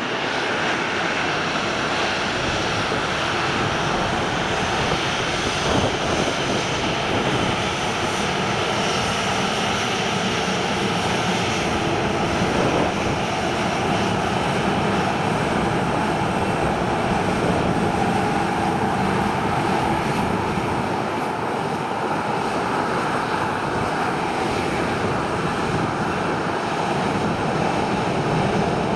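Jet aircraft engines running, a steady loud roar that holds level throughout with a faint whine above it.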